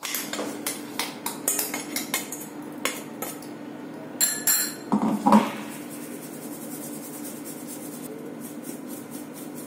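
Stainless-steel utensils clinking and knocking: a mixer-grinder jar and a steel sieve against a steel plate as ground urad dal is tipped out and sifted. A run of sharp metallic clinks comes in the first five seconds or so, then lighter, quicker tapping near the end, over a low steady hum.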